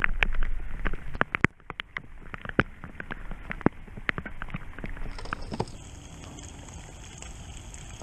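Rain: irregular sharp drops tapping close by during the first few seconds, settling into a steadier, even hiss of rainfall from about five seconds in.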